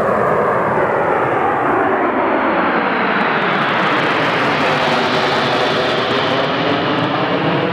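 A formation of Harrier jump jets flying past: a loud, steady jet roar from their Pegasus turbofans. The high hiss dies away after about two seconds while the roar carries on with slowly bending tones.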